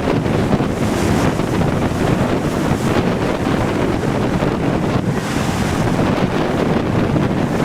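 Strong wind buffeting the microphone over heavy hurricane-driven surf breaking on a beach, a continuous low rumble with hissing wash swelling about a second in and again about five seconds in.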